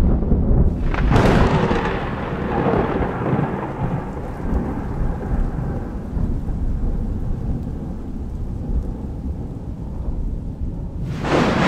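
Thunder: a sharp clap about a second in that rolls on into a long, low rumble, then another clap near the end.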